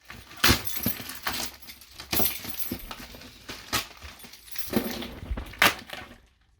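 Packaging being handled and unwrapped, with irregular crinkling and rustling and a few sharp crackles.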